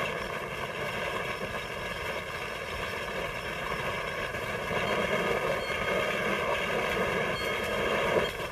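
Steady machinery din of a glass-bottle factory line, with a lehr conveyor carrying bottles: a constant noisy rumble with several steady tones over it, which drops off suddenly near the end.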